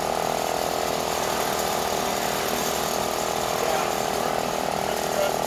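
Machinery running steadily with a fast, even mechanical rattle.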